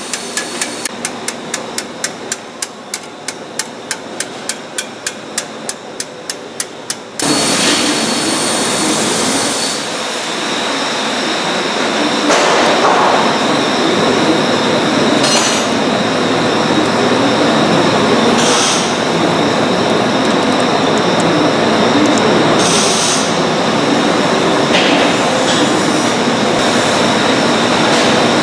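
Rapid, even metal taps, about four a second, driving a splice rod through the links of a steel web conveyor chain. About seven seconds in the taps stop suddenly and a loud, steady mechanical noise with a faint high whine takes over.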